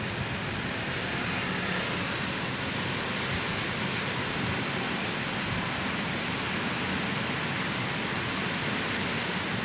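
Steady rushing hiss of a storm's strong wind and rain, even and unbroken.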